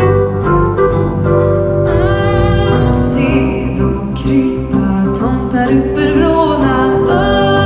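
Live instrumental accompaniment playing; about two seconds in, a woman's solo voice starts singing the melody into a microphone over it.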